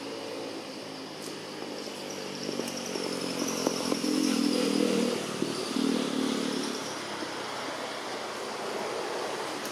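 A motor vehicle passing by. Its engine grows louder, is loudest around the middle, then fades away.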